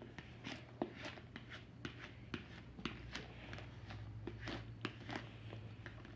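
Paper transfer tape crinkling and rustling as it is smoothed down by hand and rubbed with a plastic squeegee: faint, irregular crackles and scrapes, over a low steady hum.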